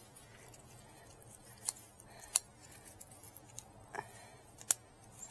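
Shears snipping through the withered stems of potted potato plants: a handful of sharp, separate cuts, spaced irregularly about a second apart.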